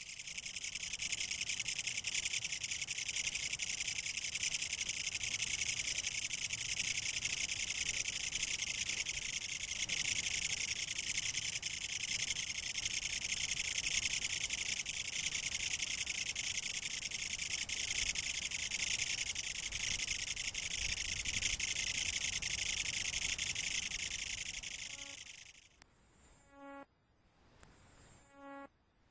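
Kutsuwamushi katydid (Mecopoda niponensis) singing its loud, continuous rasping buzz. Near the end it stops, then starts again in short phrases that each start soft and swell in loudness.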